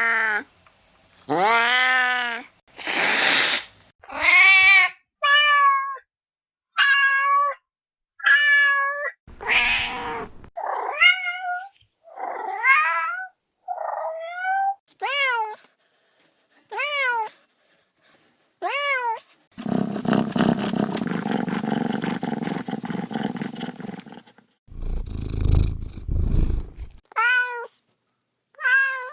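Kittens meowing: a string of short, separate meows about a second apart, some rising and falling in pitch. Around two-thirds through, about five seconds of harsh, pulsing noise gives way to a low rumble before the meows resume.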